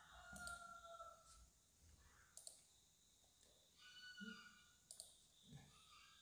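Faint computer mouse clicks, a few sharp clicks about two seconds apart, over quiet room tone.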